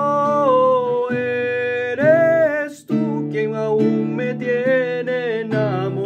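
A man singing a slow Spanish ballad in long held, sliding notes, the first held for about a second, over a strummed acoustic guitar.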